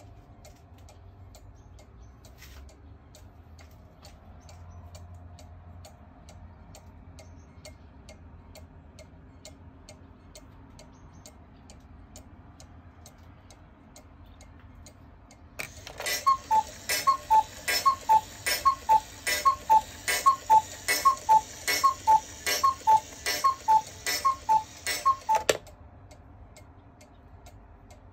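Mechanical cuckoo clock ticking steadily. A little over halfway in it strikes twelve: about a dozen two-note cuckoo calls, each falling from a higher note to a lower one, over a breathy hiss. Then the ticking carries on alone.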